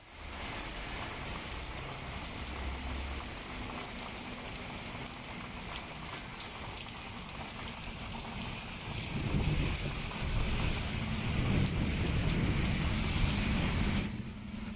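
Steady rain falling on a wet street and pavement. From about nine seconds in, a city bus's engine rumbles up close as it drives through the rain, with a brief high squeal near the end.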